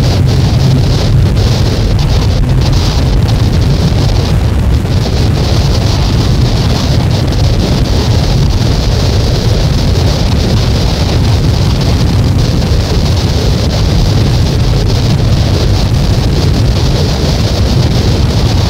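Loud, dense wall of noise from a cassette album track: a heavy low rumble under a band of hiss, unchanging throughout.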